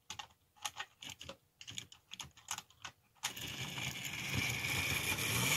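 Irregular light clicks, then about three seconds in the HO scale Rivarossi 0-8-0 model steam locomotive's electric motor and gears start up in a steady whirring run.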